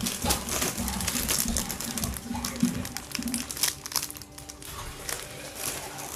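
Clear plastic jewellery packets crinkling and rustling as they are handled and shuffled in a box. The crinkling is densest over the first four seconds and thins out near the end.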